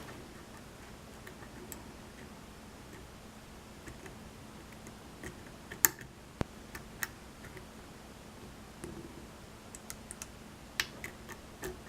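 Scattered light metallic clicks and ticks of a hook pick working the pins of a pin-tumbler lock under tension, with a few sharper clicks around the middle and near the end.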